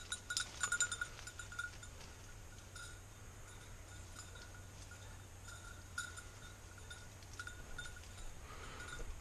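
A springer spaniel's bell jingling in irregular bursts as the dog works through bramble cover. It is loudest in the first second, then fainter and on and off, with a few clearer jingles near the end.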